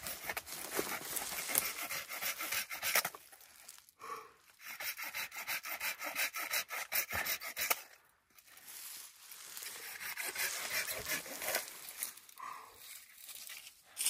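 Hand pruning saw cutting through a low pine branch at the trunk, in quick back-and-forth strokes, with short pauses about four and eight seconds in.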